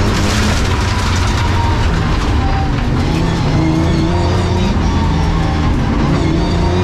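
Race car engine running hard, heard from inside the stripped, roll-caged cabin, its revs easing back and then climbing again. A rush of loose-surface tyre and stone noise comes in the first second.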